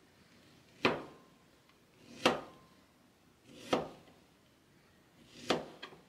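A kitchen knife slicing strawberries on a cutting board. Four cuts come about a second and a half apart, each ending in a sharp knock of the blade on the board.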